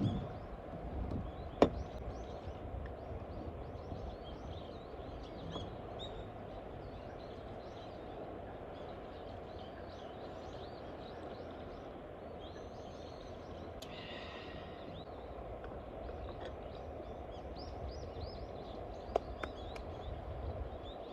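Outdoor ambience: a steady low background rush with small birds chirping throughout, one brief louder call about two-thirds through, and two sharp knocks, one near the start and one near the end.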